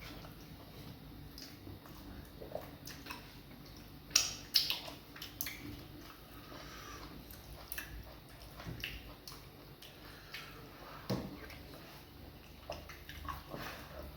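Close eating sounds of fufu and vegetable soup eaten by hand: soft squishing, smacking and chewing, broken by scattered sharp clicks, the loudest a quick pair about four seconds in.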